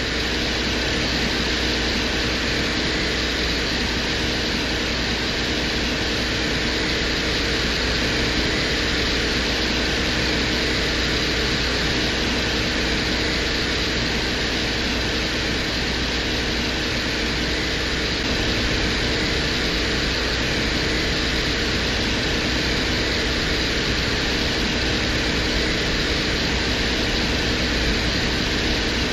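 Recording presented as the Venera 13 lander's drilling operation on Venus, picked up by the lander's own microphone: a steady, unbroken mechanical hiss with a low hum underneath.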